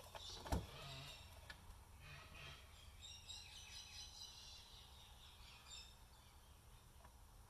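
Near silence with one sharp click about half a second in, the knock of a coffee grinder's plastic parts being handled during disassembly, followed by a few faint ticks and faint high chirps.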